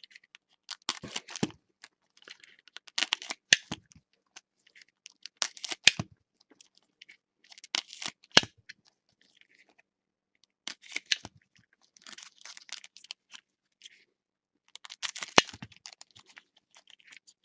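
Baseball trading cards being handled and flipped through one by one: a dry papery rustle and slide every two or three seconds, with a few sharp snaps of card edges.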